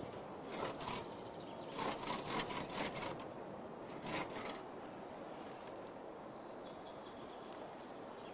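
Several short bursts of rasping, scraping wood, like fallen branches being dragged or worked: one about half a second in, a quick run of strokes between about two and three seconds, and one more around four seconds, then it goes quiet.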